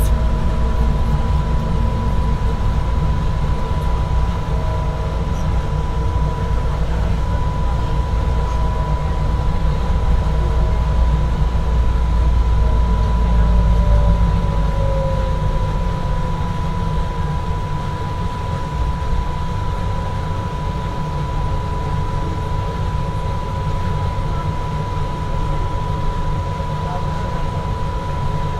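Frankfurt Airport SkyLine people mover running along its elevated guideway, heard from inside the car: a steady rumble from the rubber tyres on the concrete track, with a constant high whine over it. The deepest part of the rumble fades about halfway through.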